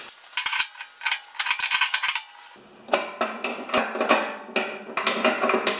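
Irregular light metal clinks and taps of a small steel flange being bent and test-fitted against a snowblower's sheet-metal auger housing.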